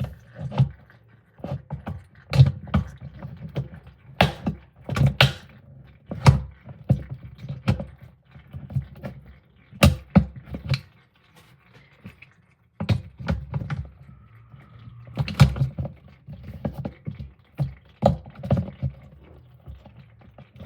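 Irregular plastic knocks, clicks and thuds as the lint trap of a portable washing machine is handled and worked loose from the tub.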